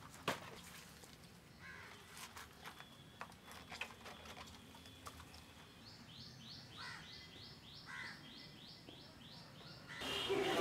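Quiet outdoor ambience with a few faint knocks and rustles, then a bird calling a quick run of short rising chirps, about four a second, for some three seconds. Near the end a louder, steady noise comes in.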